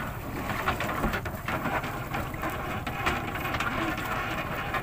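Small wooden outrigger fishing boat under way: a steady low engine drone underneath, with water splashing and slapping against the hull in irregular bursts.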